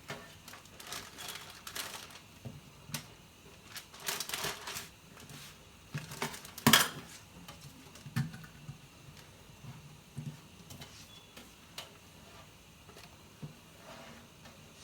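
Kitchen clatter: dishes and utensils being handled and set down in scattered clinks and knocks, with a cluster about four seconds in and the sharpest knock near seven seconds, then fainter handling sounds.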